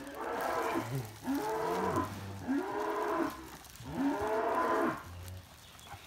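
Cow mooing four times in a row, each call about a second long and rising then falling in pitch.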